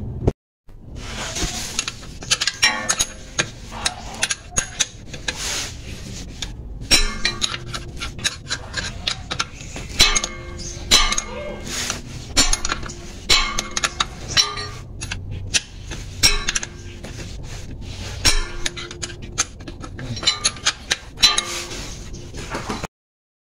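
Hand wrench working the bolts of a car's transmission support bracket: irregular sharp metallic clinks of the steel tool against the bolt heads and bracket, each with a short ring. The sound cuts off abruptly near the end.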